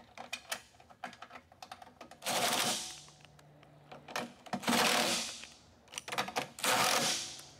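Plastic clicks and taps as a control board is pressed into place, then a DeWalt cordless driver runs in three short bursts of under a second each, driving the board's mounting bolts in.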